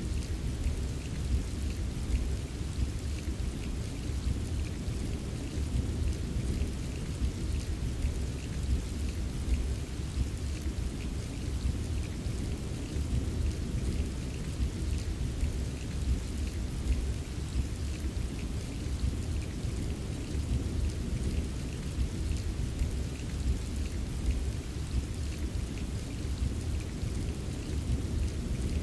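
Steady rain ambience, a deep low rumble of heavy rain with scattered small drop ticks and no distinct thunderclap.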